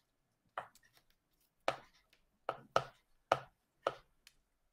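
A series of about seven short, sharp taps or knocks at uneven intervals.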